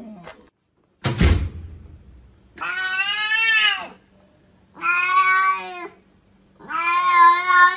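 A thump about a second in, then a cat meowing three times in long, drawn-out calls, each lasting one to two seconds.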